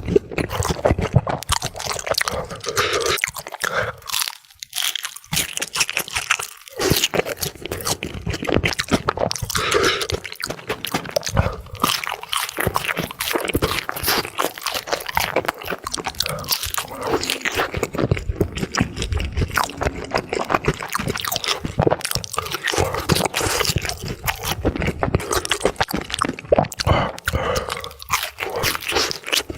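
Close-miked mukbang eating: crunchy food bitten and chewed in a dense, irregular run of crisp crunches, played back sped up.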